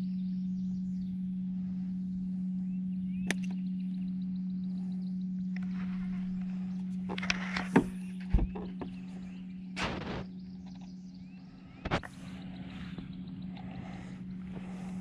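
A steady low hum, with a few sharp knocks and clatters of handling in the boat, loudest about eight and ten seconds in, and faint chirping in the background.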